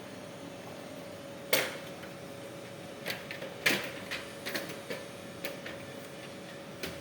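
Sharp clicks and knocks of a cash cassette and the latches of a cash recycling machine being handled: one strong knock about a second and a half in, a louder one a little past halfway, and a run of smaller clicks after it. Under them is a steady faint tone.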